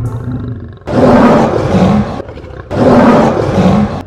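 Lion roar sound effect: two long roars, the first starting about a second in and the second about half a second after the first ends, after a quieter low sound in the first second.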